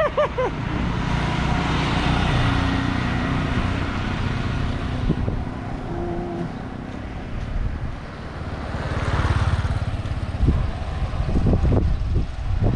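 Motor vehicles passing on a paved road, their engine and road noise rising and falling, loudest around two seconds in and again near nine seconds.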